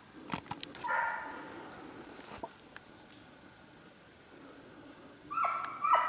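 Faint, distant barking of a young hunting dog giving tongue on a hare's trail: one bark about a second in and a quick run of several barks near the end. A few sharp clicks come just before the first bark.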